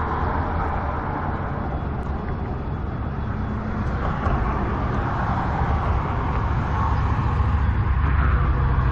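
Steady low rumble of motor-vehicle or traffic noise, continuous and without distinct events.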